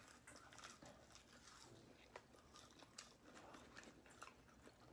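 Faint chewing and biting of food, with small irregular clicks of the mouth.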